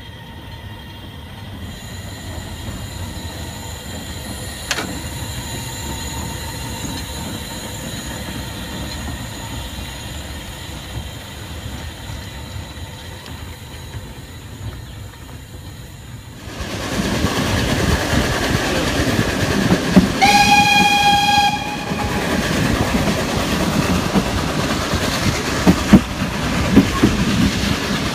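Narrow-gauge steam train. At first the locomotive is heard moving slowly, a low steady sound with one sharp click. From inside the moving train it becomes louder wheel-and-rail clatter, and the steam whistle blows once, a single chord of about a second and a half.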